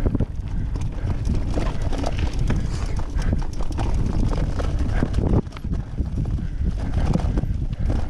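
Mountain bike ridden fast over rough dirt singletrack, heard from a camera mounted on the bike or rider: a constant irregular clatter of knocks and rattles over a low wind rumble on the microphone.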